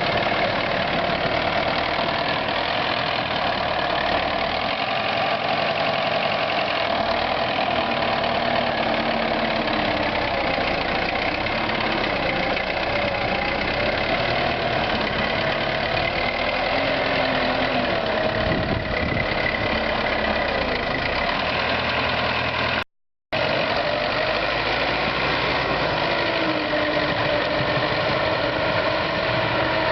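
T-74 crawler tractor's diesel engine running steadily, its pitch wandering slightly, with a momentary break in the sound about 23 seconds in.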